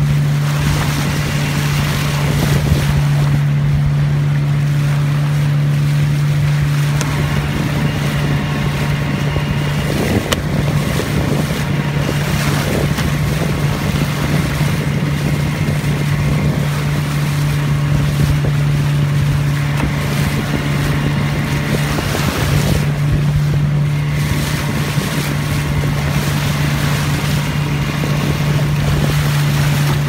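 A small motorboat's engine running at a steady speed, with water splashing and rushing along the hull and wind buffeting the microphone.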